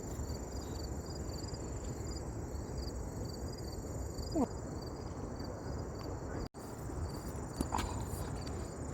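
Crickets chirping: an evenly repeating high chirp, about three a second, with a steady high trill behind it, over a low outdoor rumble. A brief falling squeak comes about four seconds in.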